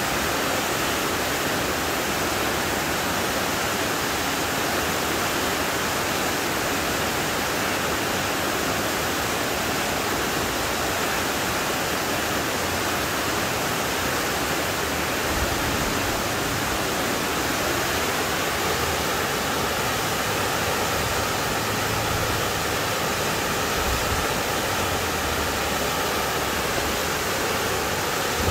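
Shequaga Falls, a waterfall partly encased in ice, pouring steadily: an even rush of falling water. A low rumble comes and goes in the second half.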